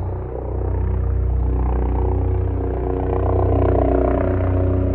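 A motor engine running steadily, growing a little louder about three to four seconds in.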